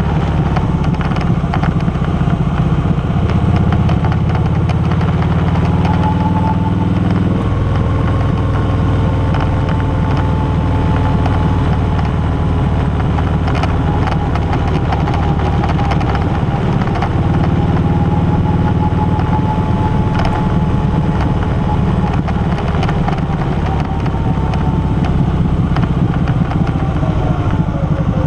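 Touring motorcycle engine running steadily while riding along a road, its low note shifting a few times as the throttle changes.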